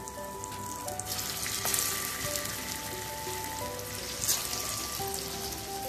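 Slices of steamed aluwadi (colocasia-leaf rolls) sizzling in hot shallow oil in a frying pan as they are laid in one by one; the sizzle swells about a second and a half in and again past four seconds as pieces go in.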